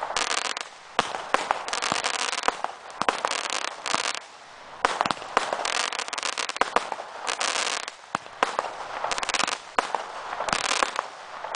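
Optimum 24-shot single-ignition firework barrage firing: shot after shot bursts into waves of crackling with many sharp cracks, a new wave every second or two.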